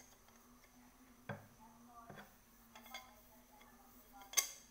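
Small aluminium cooking pot handled and turned over by hand: a few light knocks and clinks of the metal, with one sharper clink about four seconds in.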